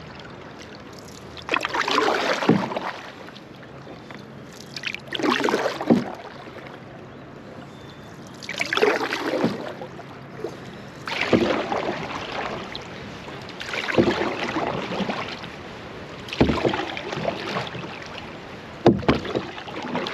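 Canoe paddle strokes: the blade dips and pulls through the water with a splashing swish about every two to three seconds, seven strokes in all.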